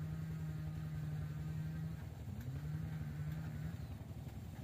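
An engine running at a steady hum, dipping and gliding back up in pitch about two seconds in, then dying away near the end.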